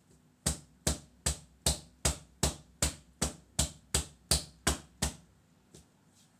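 Small soap mould full of freshly poured cold process soap batter being banged down on the table: about thirteen sharp knocks, roughly two and a half a second, stopping a second before the end. Tapping the mould like this settles the batter and knocks out trapped air bubbles.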